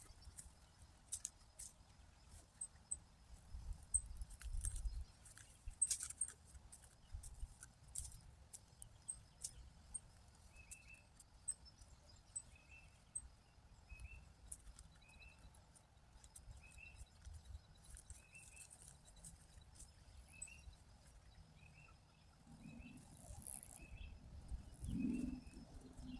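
Faint bird calling, a short chirp repeated about once a second, with a series of higher ticking calls in the first half. Scattered rustles and clicks of weeds being pulled by hand run underneath.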